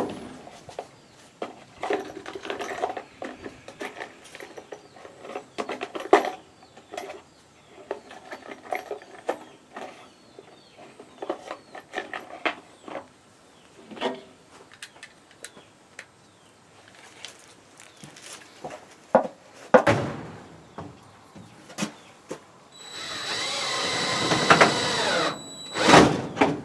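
DeWalt power drill driving a 1.5-inch roofing screw into a wooden wall, running steadily for about two and a half seconds near the end with a short burst just after. Before that come scattered clicks and knocks of handling, and one brief burst about twenty seconds in.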